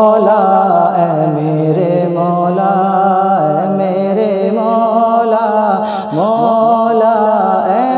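Male voice singing a wordless, drawn-out melodic line of a devotional Urdu hamd over a steady low drone, with a short break and a new phrase rising about six seconds in.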